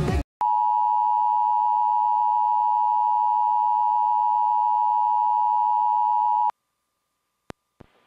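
Emergency Alert System attention tone: one steady, loud high-pitched tone lasting about six seconds and cutting off suddenly, followed by two brief clicks. Music cuts off just before the tone begins.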